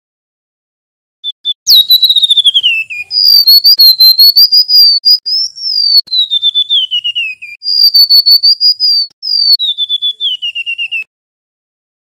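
Male golden-bellied gerygone (remetuk laut) singing loudly: clear, high whistled phrases that waver and then step down in pitch as runs of quick notes. The song starts about a second in and stops about a second before the end.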